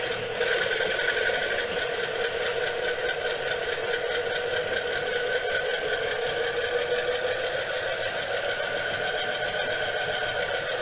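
Model train of a BB301 diesel locomotive running along its track: the steady whirr of the small electric motor and gears with the running noise of wheels on the rails.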